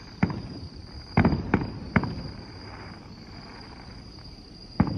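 Fireworks shells bursting: a bang just after the start, a quick run of three bangs about a second in, and one more near the end, each trailing off briefly. A steady high tone runs underneath.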